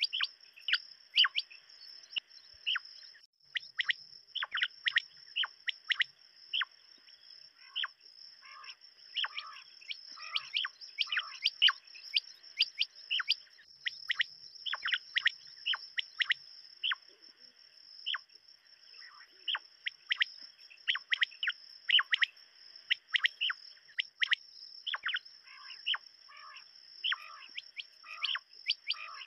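Common quail calling: a long irregular series of short, sharp calls, two or three a second, over a steady high-pitched buzz.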